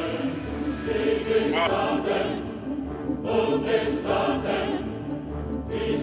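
Background music with choral singing: held, wavering sung notes.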